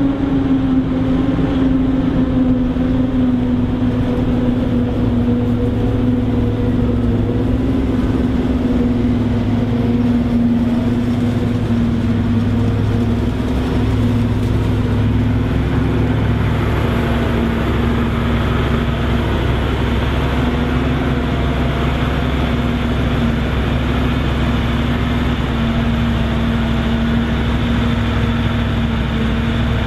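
Krone Big X 780 self-propelled forage harvester chopping maize under load, its engine and cutterhead running as a loud, steady drone, with a tractor running alongside. The drone's pitch sinks a little over the first several seconds.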